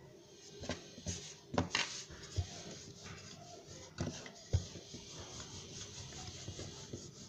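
Wooden rolling pin rolling out soft flour dough on a wooden board, with a few soft knocks of the pin and hands against the board.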